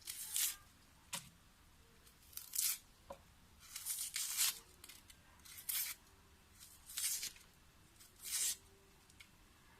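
Dry papery skin of a small red onion being peeled off: about seven short crackling tears, spaced a second or so apart.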